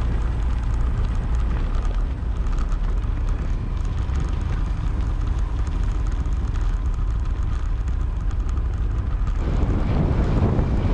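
Wind buffeting a camera microphone over the rumble of a moving vehicle, steady and loud, growing fuller about nine and a half seconds in.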